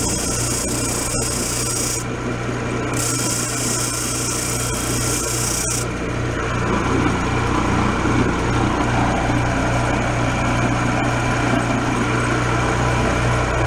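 Bench disc sander running with a steady motor hum while a wooden dowel rod is held against the abrasive disc to sand it down to diameter: a hissing rasp of wood on sandpaper, with a short break about two seconds in. The sanding stops about six seconds in and the sander keeps running.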